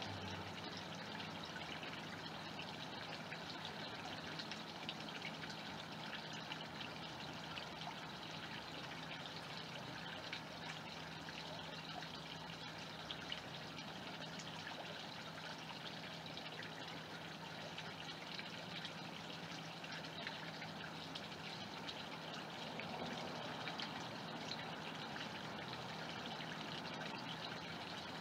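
Steady trickle of running pond water, an even splashing flow that does not change.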